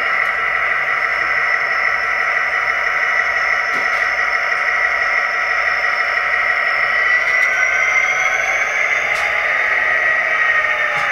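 Sound decoder of a Walthers HO-scale EMD SD60 model playing the diesel locomotive engine running steadily at low throttle through the model's small onboard speaker. A high whine rises in pitch about seven seconds in.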